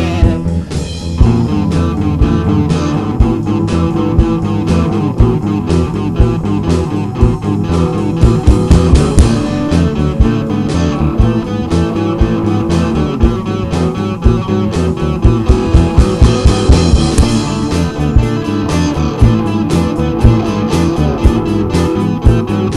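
Guitar-driven rock song with electric guitar over bass and a steady drum beat.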